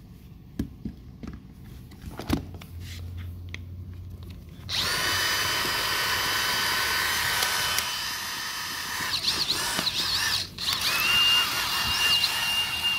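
A DeWalt 20V brushless cordless drill/driver runs free with no load, its motor whine starting suddenly about five seconds in after a few handling clicks and a knock. The pitch wavers under the trigger, the motor stops briefly about ten seconds in, then spins up again and runs steadily.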